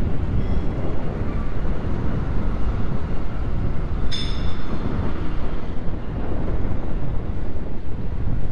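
Steady wind rush and low rumble on an action camera's microphone while cycling, with one short, sharp metallic clink that rings high, about four seconds in.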